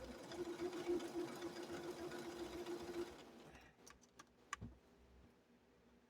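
Sewing machine running steadily as it stitches, stopping about three seconds in, followed by a few faint clicks.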